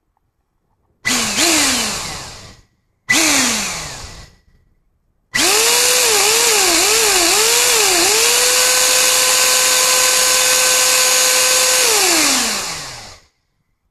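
Bare 120-volt, 400-watt vacuum cleaner motor with its aluminum fan exposed, spun up twice in short bursts that each wind down with a falling whine. It is then run for about eight seconds with a high whine over a loud hiss, the speed dipping and recovering four times before holding steady, and near the end it winds down to a stop.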